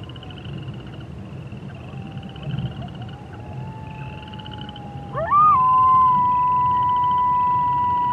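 Wolves howling: long, steady held notes, two howls overlapping, the loudest one gliding up about five seconds in and then held. A faint repeating trill runs high in the background.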